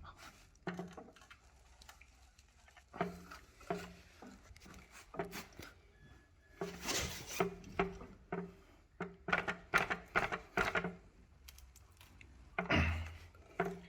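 Hex tool working at very tight, thread-locked hex bolts on an electric unicycle's motor hanger: an irregular series of short clicks, knocks and creaks, with one longer scraping burst about halfway through.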